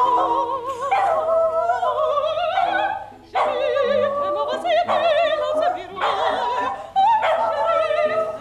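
A woman sings operetta in a trained soprano voice with wide vibrato while a poodle howls along with her. They sing in phrases, with short breaks about three and seven seconds in.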